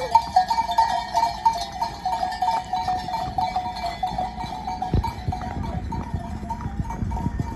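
Metal bells on the walking cattle clanking irregularly, a few strikes a second, growing fainter in the second half as the herd moves off.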